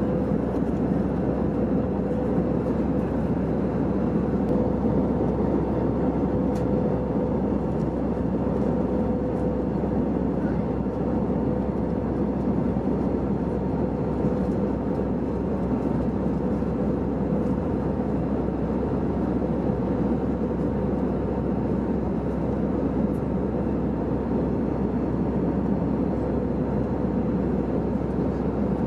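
Airbus A320 cabin noise in flight: a steady rush of airflow and engine drone, with a constant hum running through it.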